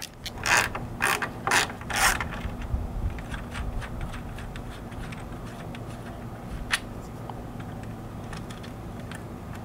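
Ratchet wrench clicking as a ring terminal is tightened onto a battery post. A few louder strokes come in the first two seconds, then lighter quick clicks and one sharp click later on, over a steady low hum.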